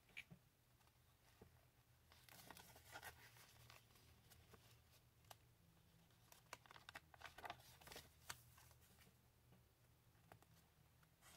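Faint rustling and soft clicks of paper pages being turned in a handmade junk journal, over a low steady hum.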